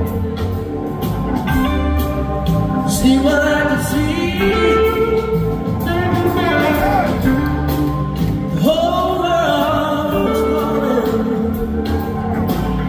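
Live soul-blues band playing at full volume, with a man singing lead over organ and the band.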